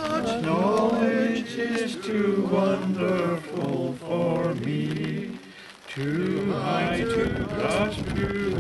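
Unaccompanied singing of a slow hymn in long, held notes, with a man's voice the clearest. There is a short break between lines about five seconds in.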